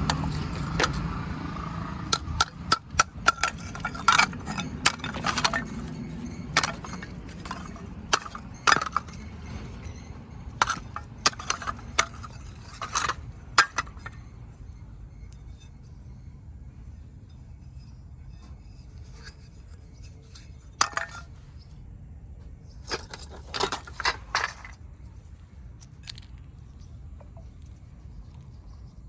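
Fired clay kulhad cups cracking and breaking: a dense run of sharp cracks and clinks through the first half, then a few scattered snaps later on.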